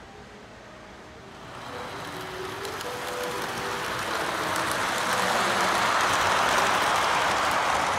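O-gauge model train running on the layout's track as it comes out of a tunnel and passes close by, its rolling noise growing steadily louder, loudest near the end.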